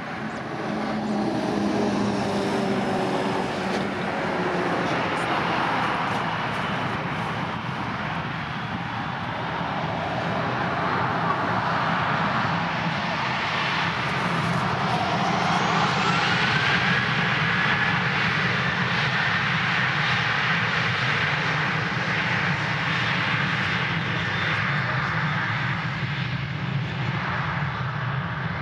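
Boeing 737-800's CFM56-7B jet engines running steadily. About halfway through, a whine rises in pitch as the engines spool up for the departure.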